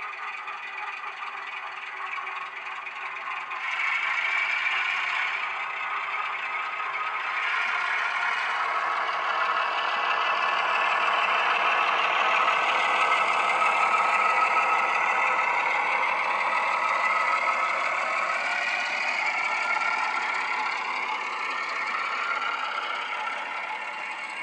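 ESU LokSound Class 08 shunter sound file playing through a model locomotive's small speaker: a diesel engine working under power. It grows louder as the loco approaches, is loudest about halfway through as it passes, then fades, with wheels clattering over the model track as the wagons follow.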